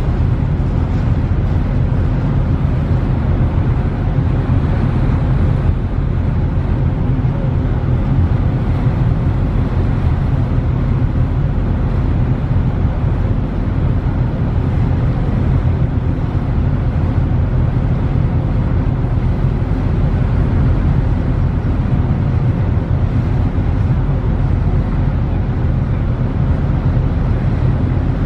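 Steady low drone of a ferry's diesel engines under way, with an even rush of wind and water over it.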